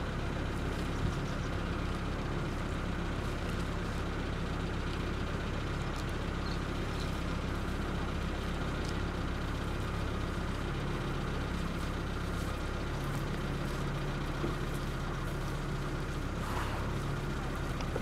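Vehicle engine idling: a steady low hum, with a few faint ticks over it.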